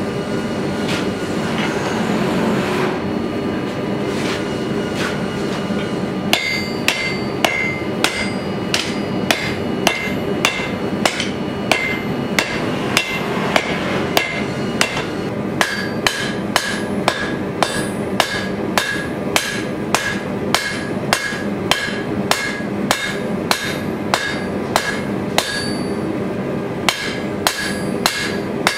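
Hand hammer striking a glowing-hot sword blade on a steel anvil, a steady run of about two ringing blows a second that starts about six seconds in. A steady rushing noise runs underneath throughout.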